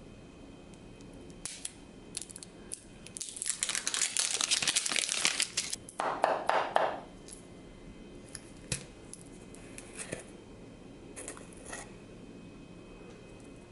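A metal matcha tin being opened by hand. A crackly, crinkling rustle runs for a couple of seconds about three seconds in, then a shorter, lower scraping as the lid comes off, then a few light clicks of the lid and tin.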